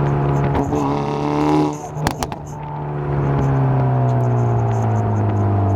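Hyundai Veloster N's turbocharged 2.0-litre four-cylinder with a catless downpipe, heard inside the cabin in N mode: the engine rises in pitch under acceleration, drops off about two seconds in with a couple of sharp cracks, then runs on with its pitch slowly falling. The note has a rasp that comes from the removed catalytic converter.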